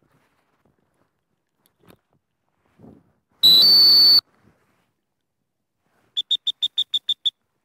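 A handler's dog-training whistle blown to a retriever working in the field: one long blast lasting under a second, stepping up slightly in pitch partway through, then about eight quick short toots near the end.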